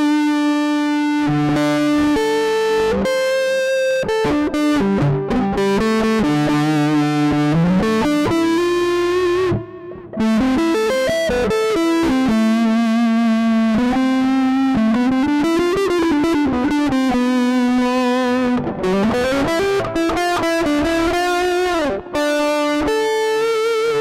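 Electric guitar played through the Zoom G1Four multi-effects pedal's DreamBox patch, a smooth high-gain lead tone: sustained single notes with string bends and vibrato. The playing pauses briefly twice, about ten seconds in and near the end.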